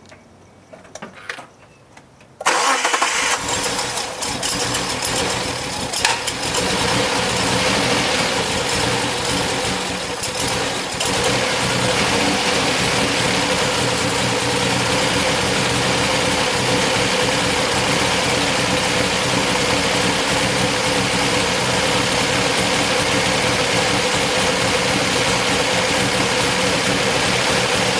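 Car engine starting about two and a half seconds in, after a few faint clicks, then idling roughly with a clicking noise. It runs unevenly for several seconds before settling into a steadier idle.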